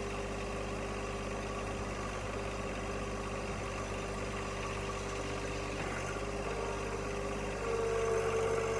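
Engine running steadily at idle, picking up speed a little near the end.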